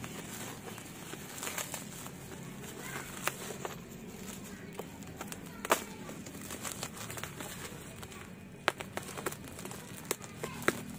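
Box cutter slicing through packing tape and bubble wrap, with crinkling plastic and scattered sharp clicks and snaps; the loudest snap comes about halfway through.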